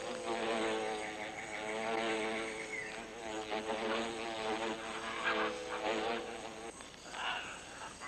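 Paper wasp fanning its wings on the nest, a steady pitched buzz that cuts off shortly before the end: the wasp is cooling its brood with a current of air.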